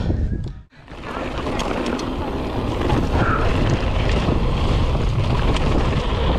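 Wind buffeting an action camera's microphone and tyre rumble from a mountain bike riding a downhill trail, with scattered clicks and rattles from the bike. The noise drops out briefly under a second in, then builds back to a steady rush.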